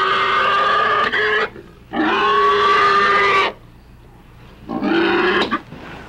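A sow screaming in pain as she is beaten: two long, high squeals of about a second and a half each, then a shorter one about five seconds in.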